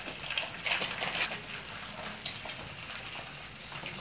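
Two eggs frying in a nonstick pan, sizzling with a steady crackle and a few louder crackles in the first second or so.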